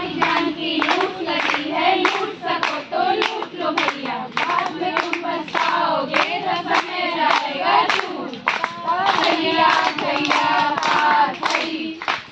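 A group of women singing a song together while clapping their hands in time, about two claps a second.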